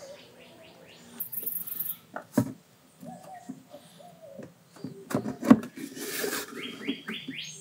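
Handling noise at an engine's oil filler: clicks and knocks of the plastic filler cap and a plastic oil jug, with two sharper knocks, one about two and a half seconds in and one about five and a half seconds in. Short high chirps of birds are heard behind it, most of them near the end.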